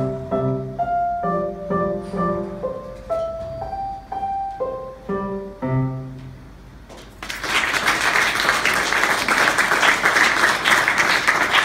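Digital piano playing a simple melody over low chords; the last notes fade about seven seconds in. Applause then breaks out and goes on to the end.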